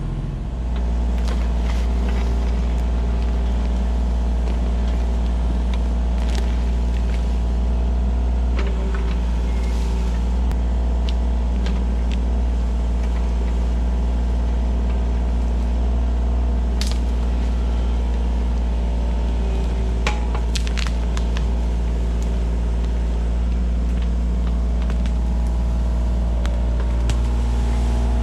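Kubota U35-4 mini excavator's diesel engine running steadily at working speed, rising slightly about half a second in, with scattered cracks and knocks from the work.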